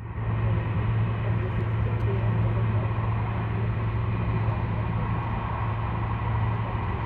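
Train running at speed, heard from inside the carriage: a steady rushing rumble with a constant low hum.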